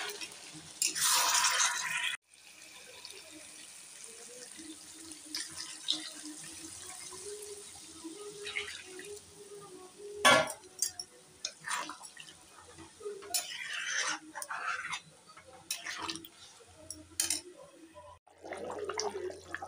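Cooking sounds from a pan of potato curry: a burst of frying hiss in the first two seconds that cuts off abruptly, then a steel ladle stirring the gravy with scattered clinks and scrapes against the metal pan and the liquid sloshing.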